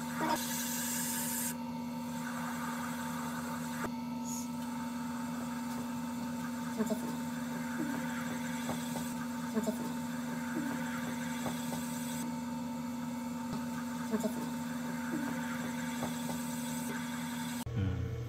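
Electric potter's wheel humming steadily while a metal trimming tool scrapes thin shavings off a white porcelain sake cup spinning upside down on a clay chuck. The scraping is loudest in the first second or so.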